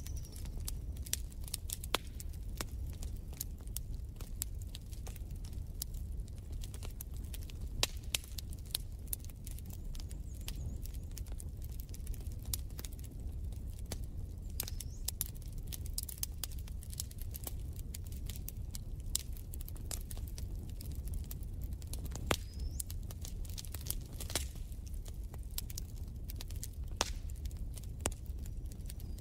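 Wood fire crackling in a fireplace: irregular sharp pops and snaps over a steady low rumble, with an occasional brief high chirp.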